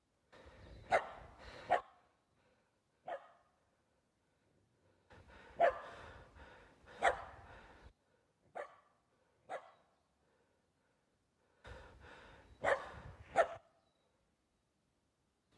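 A dog barking repeatedly: short, sharp barks, several coming in quick pairs, with pauses of a few seconds between the groups.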